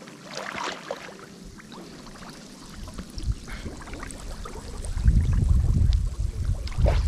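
River water splashing and trickling, with a brief louder splash near the start. From about five seconds in, a loud deep rumble on the microphone takes over.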